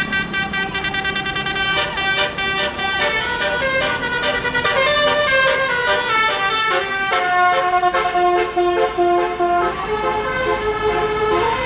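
Bus's basuri telolet horn, an Indonesian multi-tone musical horn, playing a long tune of quickly changing notes. The notes move lower about seven seconds in.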